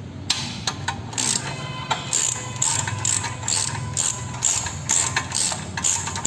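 Hand ratchet wrench clicking in quick repeated strokes, about two a second, as a bolt on a car's front suspension strut is undone.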